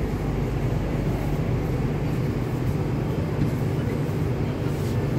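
MTR Kwun Tong Line C-Train running steadily through a tunnel, heard from inside the car as an even low rumble of wheels and motors.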